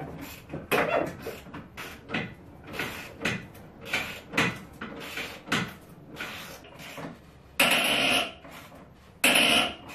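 A universal receiver hitch being lifted and shifted into place under a Jeep Cherokee: irregular clunks, knocks and scrapes of metal being handled. Near the end come two louder noisy bursts of about a second each.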